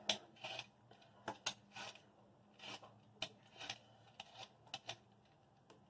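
Hand-held vegetable peeler scraping the skin off a raw potato: about a dozen short, faint strokes at an uneven pace.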